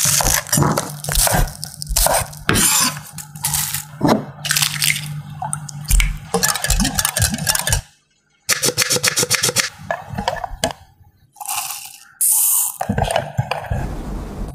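A kitchen knife chopping scallions on a wooden cutting board in irregular knocks, then a wire whisk beating batter in a glass bowl with rapid, even clinking strokes. A brief silent gap falls between the two.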